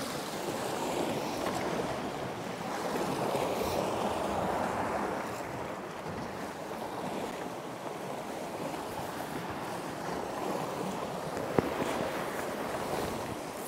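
Sea waves washing against the rocks with wind noise, swelling louder a few seconds in, and a single sharp click near the end.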